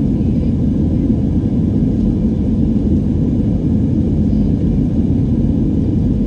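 Jet airliner cabin noise in flight: a steady low rumble of engines and airflow, unchanging throughout.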